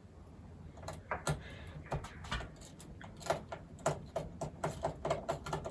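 Small screwdriver clicking and scraping against the screws of a laptop's plastic bottom cover as they are undone: a run of irregular small clicks starting about a second in.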